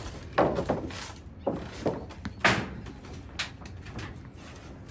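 Metal tool chest being handled and lifted: several sharp knocks and scrapes, the loudest about half a second in and again about two and a half seconds in.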